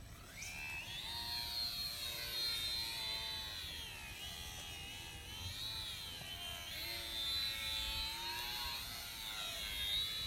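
Radio-controlled model plane's motor and propeller whining overhead, the pitch swelling and dipping several times as the plane flies about.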